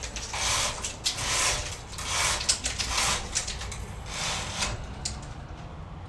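Window roller shade being lowered by its pull chain or cord, a run of rattling pulls about one a second with a few light clicks.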